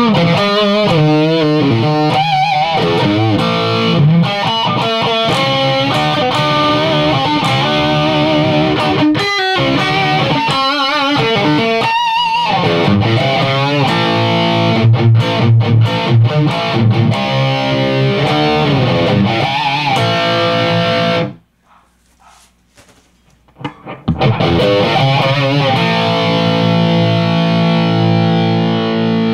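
High-gain distorted electric guitar through a rebuilt Crate Vintage 60 tube amp, played at low volume into a mic'd 2x12 cabinet with Vintage 30 speakers. Lead lines with wide vibrato and bends, a pause of about two seconds past the middle, then held, ringing chords.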